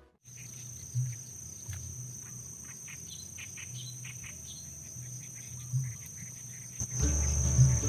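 Insects chirring in one steady high, unbroken tone, with short bird chirps over it in the first few seconds. Background music comes back in near the end.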